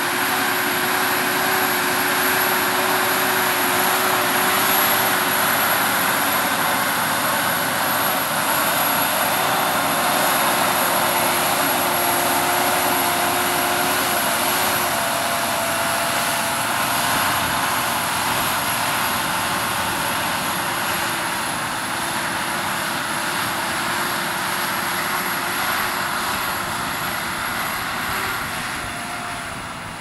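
New Holland T8.330 tractor's six-cylinder diesel engine running steadily under heavy load while pulling a multi-furrow reversible plough through the soil: a continuous drone with a few steady tones in it, easing off slightly near the end.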